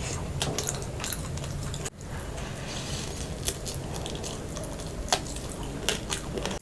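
Close-miked eating of rice and crab curry: wet squishing of the food and chewing, with scattered sharp clicks, over a low steady hum.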